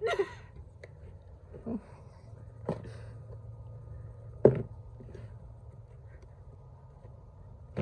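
A few scattered sharp knocks of objects being handled, the loudest about halfway through, over a faint low steady hum.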